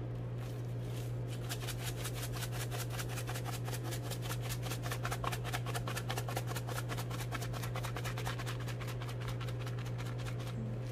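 Spice shaker shaken over raw meat in a glass bowl: a quick, even run of light ticks, about six a second, over a steady low hum.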